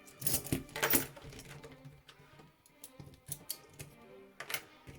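Steel handcuffs being handled: sharp metallic clicks and rattles of metal on metal, a cluster about half a second to a second in and another near the end.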